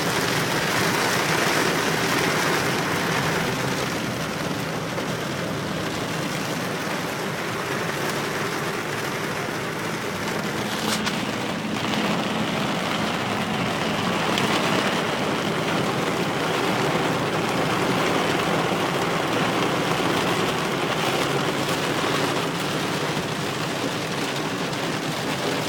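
Steady rain with car tyres hissing through water on a flooded road. The noise swells as vehicles pass a few times.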